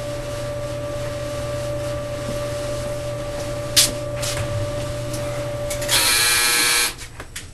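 Clothes dryer running with a steady hum that winds down about six seconds in, followed at once by its harsh end-of-cycle buzzer for about a second, the loudest sound here. A single sharp knock comes just before four seconds in.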